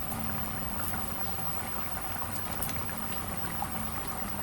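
Food cooking on the stove: a steady bubbling with scattered small pops and crackles.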